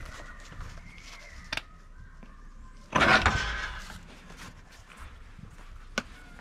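A heavy magnetic-base drill handled against a steel beam: a loud scraping clunk about three seconds in that fades over about a second, with a sharp click before it and another near the end.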